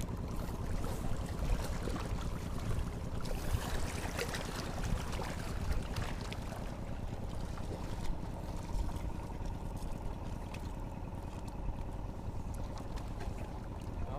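Wind rumbling steadily on the microphone from a small paddled boat on open water, with scattered light clicks and knocks.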